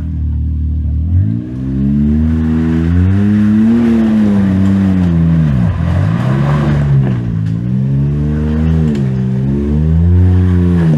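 Side-by-side UTV engine revving up and down several times. The pitch climbs slowly to a peak a few seconds in, then drops and rises again in shorter swells.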